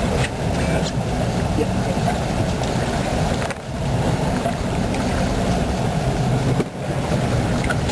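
Motorboat engine running steadily, a dense low rumble that dips briefly twice.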